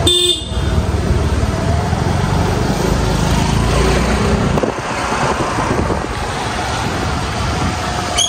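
Scooter riding along a road: small engine running under heavy wind rumble on the microphone, which eases a little past halfway. A brief high beep sounds right at the start.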